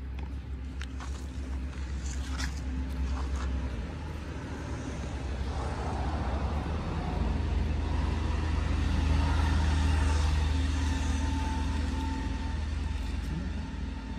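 A motor vehicle's engine rumbling past, growing louder to a peak about two-thirds of the way through and then fading, with a steady hum over the rumble. A few faint clicks near the start.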